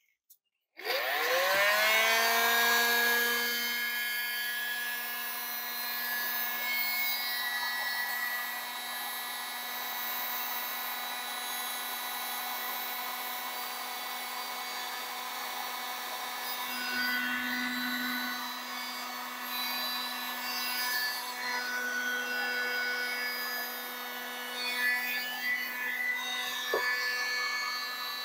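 Electric heat gun switched on about a second in, its fan motor spinning up with a rising whine and then running steadily. It is blowing hot air onto solder-seal splices to melt the solder and shrink the tubing.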